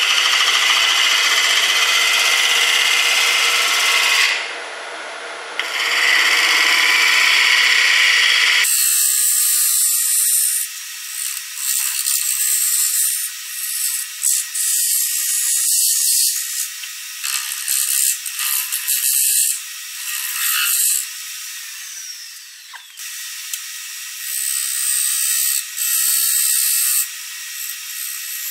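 Round cutter shear cutting the outside of a spinning resin-and-walnut bowl on a wood lathe: a steady scraping hiss of the cut, broken briefly about four seconds in. After about nine seconds the sound turns thin and high and comes in short stop-start strokes as the tool is pressed on and lifted.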